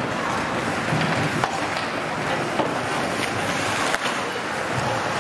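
Ice hockey in play: skate blades scraping the ice over a steady rink din, with three sharp clacks of stick and puck.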